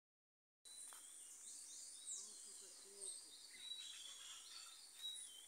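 Faint woodland ambience: birds chirping with short high calls over a steady high-pitched insect drone.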